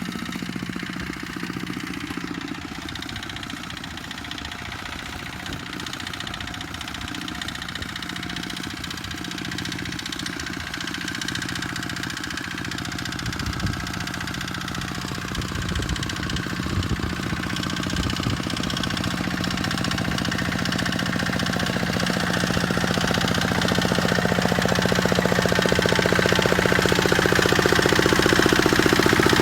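Kubota tractor engine running steadily, with a few louder knocks around the middle, and growing steadily louder over the second half.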